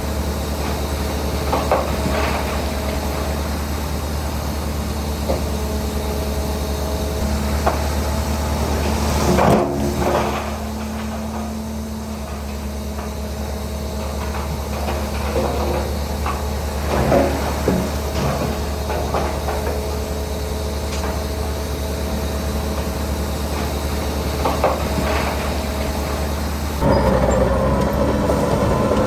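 Heavy diesel earthmoving machinery running at a steady drone, with occasional clanks and knocks. The strongest knock comes about nine and a half seconds in. Near the end the engine gets louder, with a faint rising whine.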